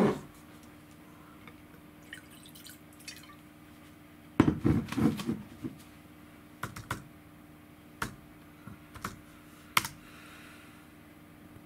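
Wine poured from a bottle into a tasting glass for about a second, followed by a handful of separate light clicks and taps.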